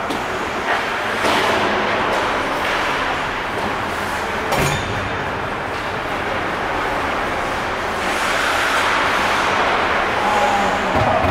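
Ice hockey in play: skates scraping across the ice and sticks working the puck over a steady wash of rink noise, with a few sharp clacks, the clearest about four and a half seconds in.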